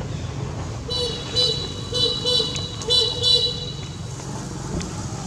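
A high, steady-pitched tone sounds in three short bursts from about a second in, over a constant low rumble of wind.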